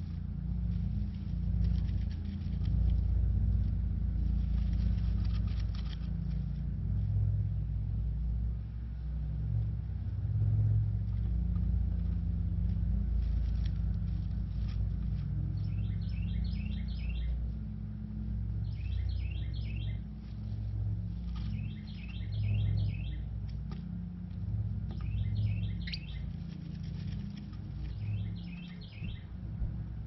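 Carolina wren song: five short phrases of quick repeated notes, each a couple of seconds apart, starting about halfway through. Underneath them runs a steady low engine hum.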